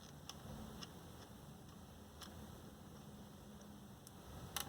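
Faint, scattered light clicks of a laptop hard drive and its small screws being handled, with a louder quick cluster of clicks near the end.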